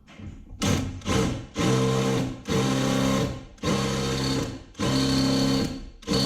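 Handheld electric power tool on the car's frame metal, its motor run in about six short trigger bursts that get longer as it goes.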